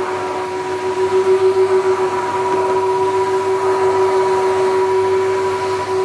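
Numatic NVQD570 vacuum cleaner running, a steady motor whine over the rush of air drawn in through its floor tool as it is pushed across a rug.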